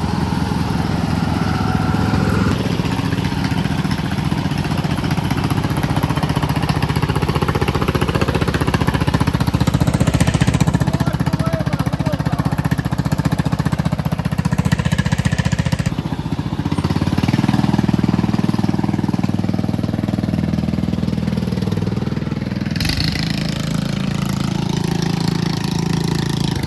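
Small lawn mower engines running, their pitch and loudness shifting partway through and again near the end as the throttle changes.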